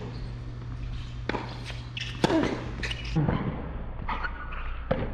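Tennis ball on a hard court: a few sharp knocks of ball on racket and court, the loudest about two seconds in, with a short voice after it.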